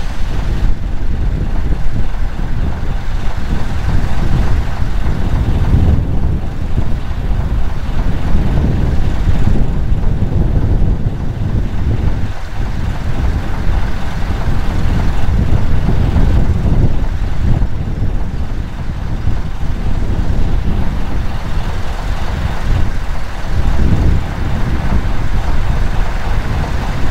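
Vulcan Foundry 0-4-0 diesel shunter running as it draws slowly up with its two carriages, then idling at a stand, with wind rumbling on the microphone.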